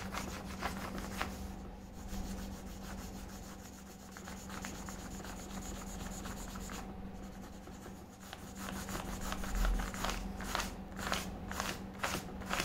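A yellow crayon rubbing back and forth across a sheet of paper in a series of short scratchy strokes. The strokes come quicker and louder in the last few seconds.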